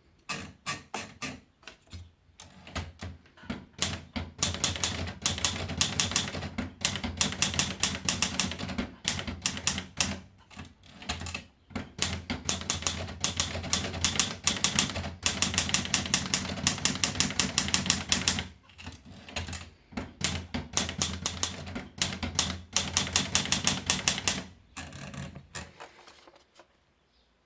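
Olivetti Dora manual portable typewriter being typed on: fast runs of key strikes with several short pauses between them, the typing stopping a little before the end.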